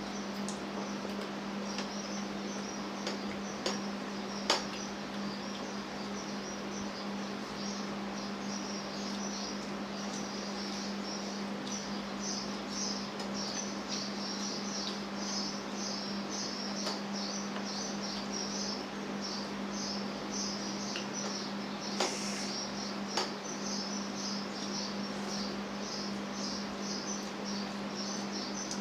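Insects chirping continuously in rapid, dense pulses over a steady low hum, with a few short sharp clicks, a couple about four seconds in and two more about 22 seconds in.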